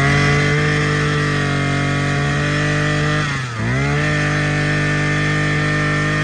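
Maruyama 23cc two-stroke brush cutter engine running at high revs, its pitch dipping briefly about halfway through and climbing straight back.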